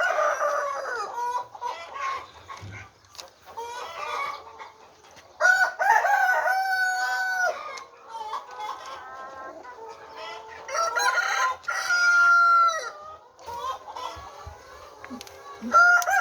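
Flock of chickens clucking, with a rooster crowing in long drawn-out calls, three of them spread through the stretch.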